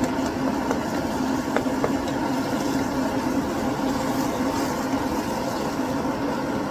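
Steady roar of a gas cooking burner flame under a pot of chili.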